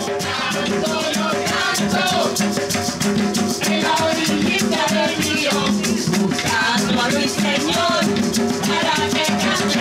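Latin music with a fast, steady shaker rhythm, drums and singing.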